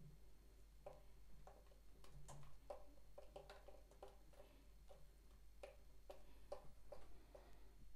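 Faint, irregular clicks, roughly two a second, of a threaded metal fitting being turned by hand on a brass valve.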